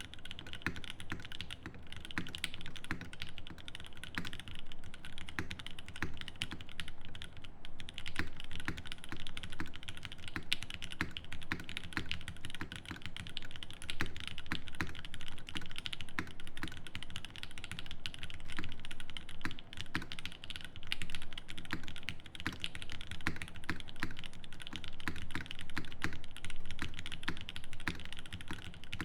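Fast, continuous typing on a Think 6.5 V2 mechanical keyboard with lubed Dogikon switches in an FR4 plate and GMK keycaps: a dense stream of keystroke clacks.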